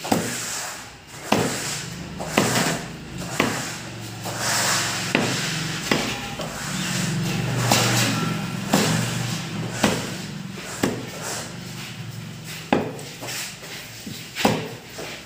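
Heavy curved knife chopping a whole fish into steaks on a wooden chopping block: sharp knocks of the blade striking the wood, about once a second and unevenly spaced.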